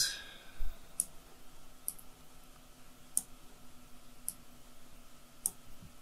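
Computer mouse clicking: about five single, sharp clicks spaced a second or so apart, over a faint steady hum.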